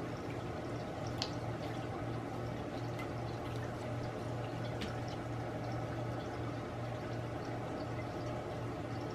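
Steady low hum and hiss of background noise, with a few faint, light clicks.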